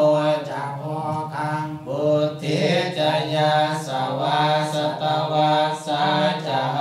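Theravada Buddhist monks chanting Pali verses in unison, several male voices held on a low, steady recitation pitch with short breaks between phrases.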